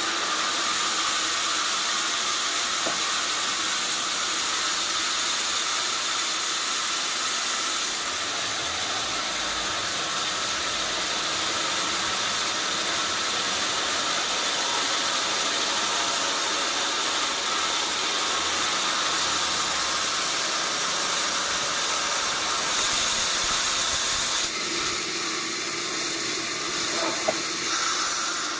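Sawmill band saw running through a log: a steady high hiss with a faint whine, changing slightly about eight seconds in and again near the end.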